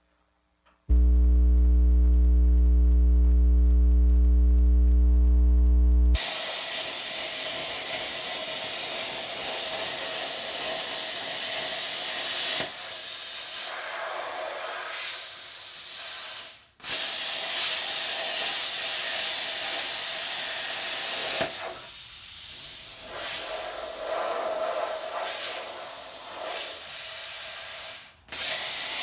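Plasma cutter slicing through the steel C-channel of an old car's X-frame brace: a steady loud hum for about the first five seconds, then a loud hiss with a faint high whistle. The hiss weakens twice and cuts out briefly twice as the cut goes on.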